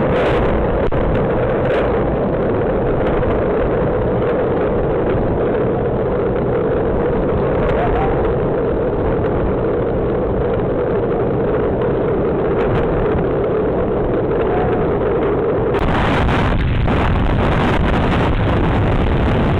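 Storm wind with rain: a loud, steady rush buffeting the microphone. It changes abruptly about sixteen seconds in.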